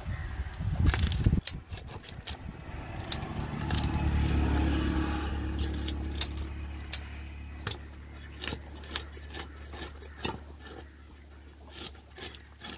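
A motor vehicle's engine runs close by, a steady low hum that comes up about four seconds in and then slowly fades. Over it come repeated sharp clicks and knocks of a knife working fish on a cutting board.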